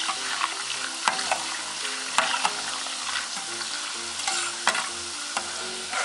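Chak-chak dough pieces deep-frying in a steel pot of hot oil with a steady sizzle. A metal skimmer stirs them, clinking and scraping against the pot several times.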